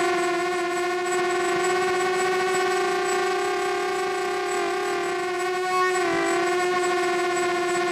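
Walkera Runner 250 Advance quadcopter's brushless motors and propellers whining steadily in flight, heard through its onboard camera's microphone. The whine holds one pitch, wavering slightly about six seconds in.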